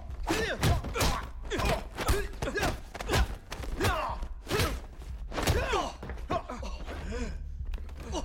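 Fight sound effects: a rapid series of punches and body blows landing as thuds, with the fighters grunting and groaning between hits.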